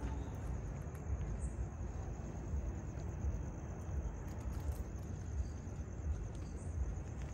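Crickets trilling steadily at a high pitch over a low rumbling background noise.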